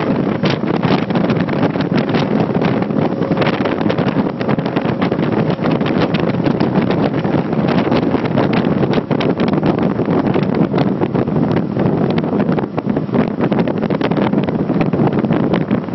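Wind buffeting the microphone over the steady rush of water and engine noise of a motorboat running at speed.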